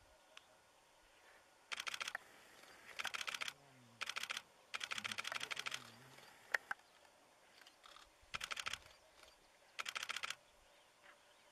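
Camera shutters firing in continuous burst mode: six bursts of rapid clicks, each half a second to over a second long, with one single sharp click between them.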